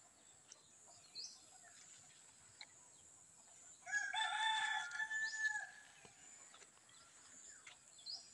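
A rooster crowing once, about four seconds in: a single long crow of nearly two seconds. A small bird gives short high chirps around it.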